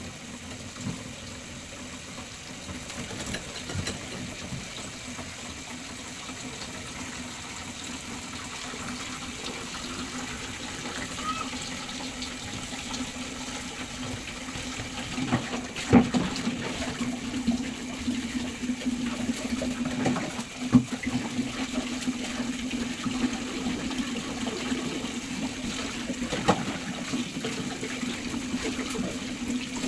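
Water running from a tap, with a steady low hum that grows stronger partway through. A few sharp knocks and splashes come about halfway through and twice more later.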